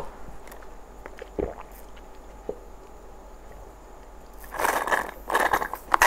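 Sipping through a straw from a small milk carton. There are a few soft knocks, then a sputtering, crackly slurp in the last second and a half.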